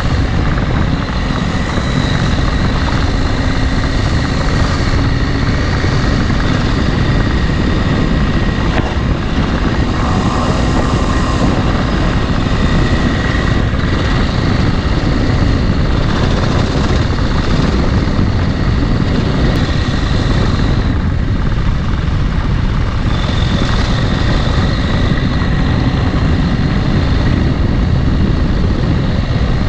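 Dual-sport motorcycle running steadily while being ridden, with heavy wind rush on the microphone.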